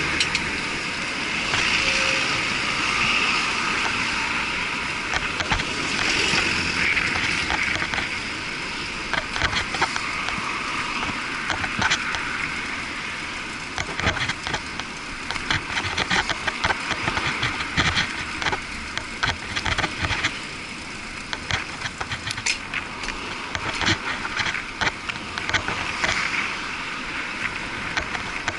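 Muffled road noise from a bicycle ride in city traffic, heard through an action camera's waterproof housing: passing cars and vans, with frequent short knocks and rattles from about a third of the way in.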